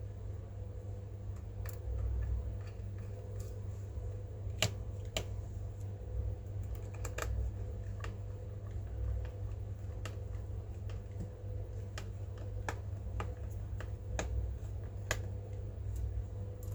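Irregular sharp plastic clicks and taps of hands working on a laptop, about one or two a second, over a steady low hum.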